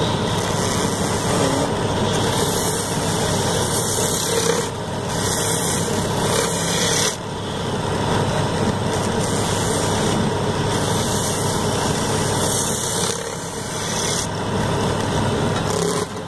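Wood lathe running while a hand-held turning tool scrapes and cuts the spinning wooden sofa-leg blank: a steady motor noise under a rough, rasping cutting sound that shifts every few seconds as the tool moves along the wood.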